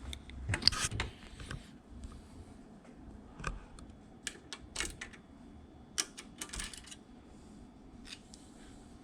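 Small metal parts clicking and tapping as valve springs and valves are fitted into a Chevy small-block cylinder head: scattered sharp clicks, with a dense cluster about half a second in.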